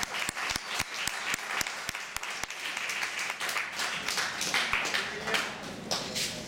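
Audience applauding. Separate claps stand out in the first couple of seconds, then merge into an even wash of clapping.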